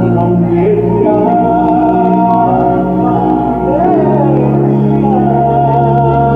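Music with held keyboard-like chords and a melody line.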